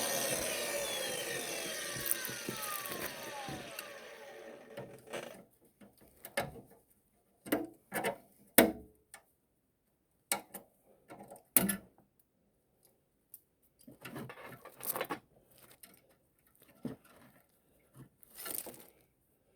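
A power tool winding down to a stop, its pitch falling and its sound fading over the first few seconds. Then come scattered short knocks, scrapes and rubbing sounds of tools and parts being handled.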